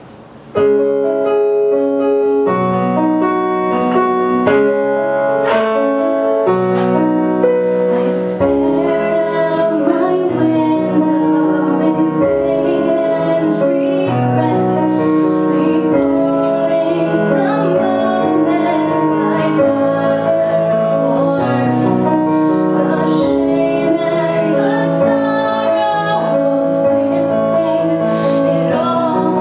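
A woman singing a pop-folk song to her own keyboard accompaniment, played with a piano sound. The keyboard starts about half a second in and her voice comes in about eight seconds in.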